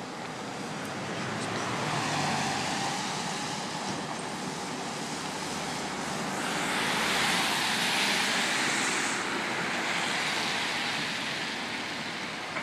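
Traffic passing on a wet road, tyre hiss swelling and fading: one vehicle faintly about two seconds in, then a louder one from about six to ten seconds.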